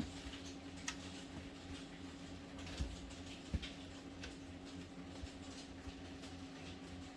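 Scattered small plastic clicks and taps as a plastic pry tool works around an HP Pavilion 15 laptop's case, releasing the clips that hold the cover, over a faint steady hum.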